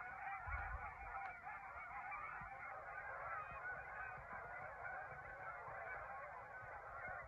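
A large mixed flock of Canada geese and cackling geese calling: a faint, continuous chorus of many overlapping honks and cackles as the flock flies in and feeds.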